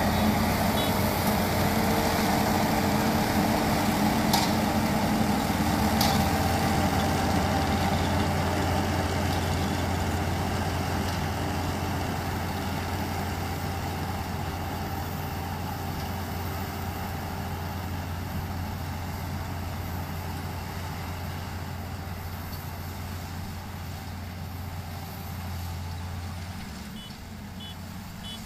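Kubota ER112 single-cylinder diesel engine running steadily, slowly getting quieter; its low hum drops away shortly before the end.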